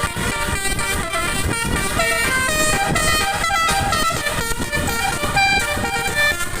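Basuri telolet multi-tone air horn on a bus playing a quick melody of short notes that step up and down in pitch, over a rough low rumble.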